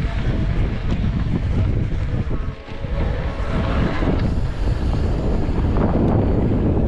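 Heavy wind buffeting on the microphone of a camera riding on a moving mountain bike, with a low rumble underneath. It dips briefly about two and a half seconds in.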